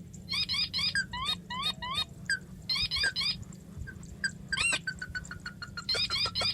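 Crake (burung tikusan) calls: short pitched notes, mostly in quick groups of three, repeated with pauses between, with one louder single call a little over halfway, over a steady low hum.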